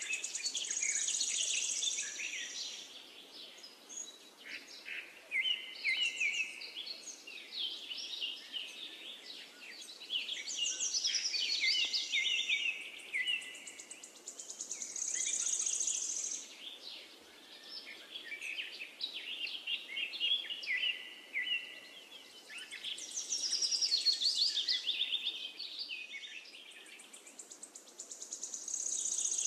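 Birdsong: several birds chirping and trilling in quick, high phrases. The same pattern comes back about every fourteen seconds, like a looped recording.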